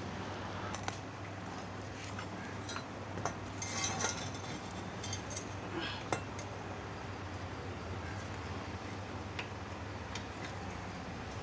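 Scattered metallic clinks and knocks from a motorcycle centre stand, its pivot pin and hand tools being handled while the stand is fitted. The sharpest clinks come about a second in, around three to four seconds and around six seconds. A steady low hum runs underneath.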